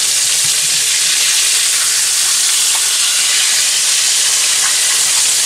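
Flour-dusted grey snapper steaks sizzling steadily in hot oil in a frying pan as they are turned with tongs, with a faint tick or two from the tongs.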